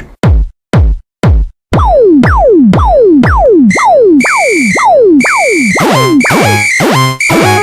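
Electronic cartoon music and sound effects: three short deep drum-machine thumps, then a string of falling-pitch synth sweeps about twice a second. A steady high tone joins them, and near the end it builds into busier synthesizer music with stepping notes.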